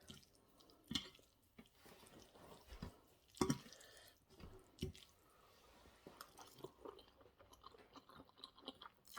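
Faint chewing of a mouthful of spaghetti bolognese: a run of soft, irregular wet mouth clicks, the loudest about one second and three and a half seconds in.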